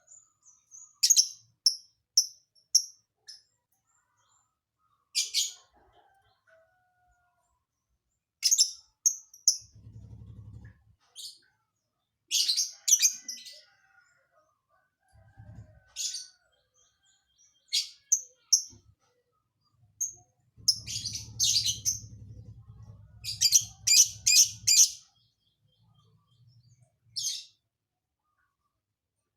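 Lovebird singing in short, sharp, high chirps that come in scattered clusters, with the busiest runs about twelve and twenty-one to twenty-five seconds in. The calls are part of its repertoire of learned, imitated calls.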